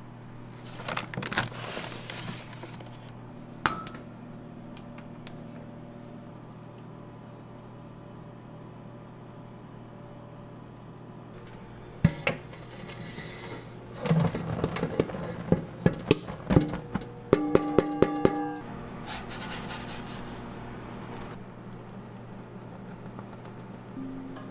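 Dough-prep sounds over a steady low machine hum: flour being scooped from a paper-lined steel bin and poured, with knocks, scrapes and clatters of metal bowls, including a short ringing clang of the stand mixer's stainless steel bowl about three quarters of the way through.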